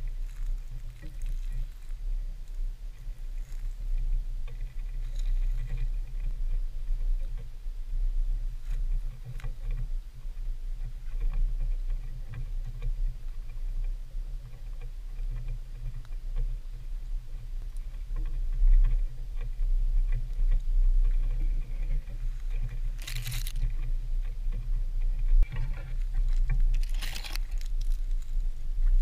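Footsteps crunching through dry leaf litter and grass while stalking, over a steady low rumble, with two louder brushing rustles near the end as vegetation scrapes past.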